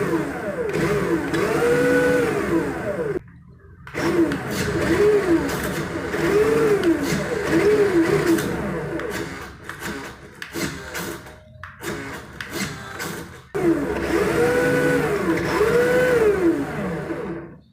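Small electric motor of a remote-control car whining, its pitch rising and falling again and again as the throttle is pushed and let off, with a couple of short breaks.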